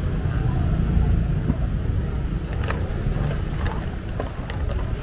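Busy street ambience: a steady low rumble with faint distant voices and a few scattered clicks.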